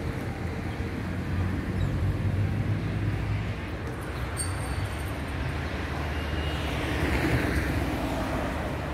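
City street ambience: a steady low rumble of traffic, with a car passing close by near the end.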